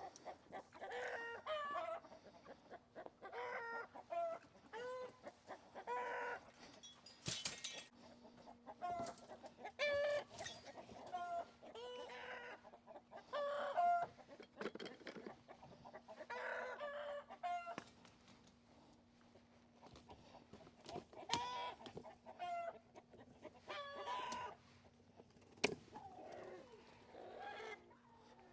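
A flock of chickens clucking and calling over and over, short pitched calls coming every second or two, with a faint steady hum underneath and a couple of sharp clicks.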